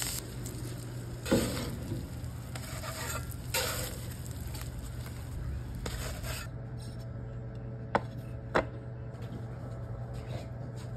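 Metal spatula scraping across a hot flat-top griddle amid sizzling, with three hard strokes in the first half. The sizzle drops away about two thirds in, and two sharp clicks follow about half a second apart.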